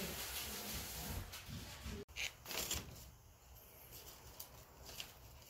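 Faint background noise with a few light knocks and clicks. The sound drops out briefly about two seconds in.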